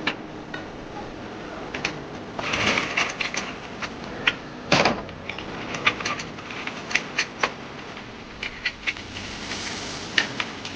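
Irregular light clicks and taps of hard objects, with a louder knock about halfway through.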